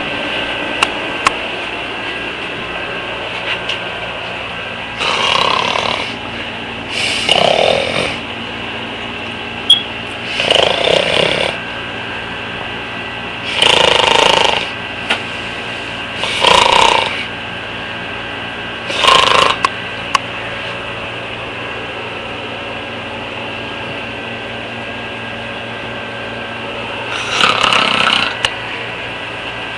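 A sleeping girl snoring: six snores about a second long, two to three seconds apart, then a pause of several seconds before one more near the end, over a steady background hum.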